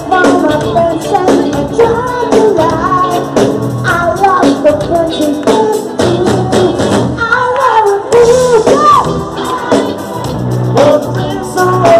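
A live band playing, with drums and bass, while a woman sings the melody into a microphone.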